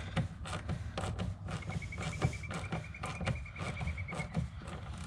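Wrench loosening the bolts of a Jeep's factory antenna mount: a run of irregular small metallic clicks and taps.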